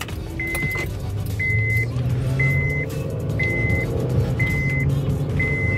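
Cabin of a 2010 Honda Odyssey minivan pulling away: its V6 engine and road noise rise as it picks up speed. A dashboard warning chime beeps six times, about once a second, each beep a steady high tone about half a second long.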